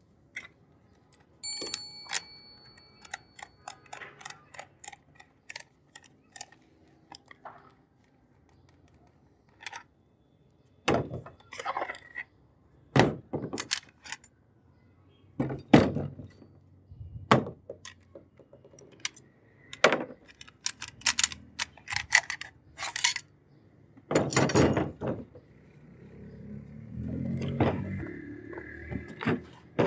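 Metal parts of a Beretta 301 semi-automatic shotgun clicking, clinking and knocking as it is taken apart by hand and the pieces are set down on a wooden table; one part rings briefly about two seconds in. A longer scraping sound comes near the end.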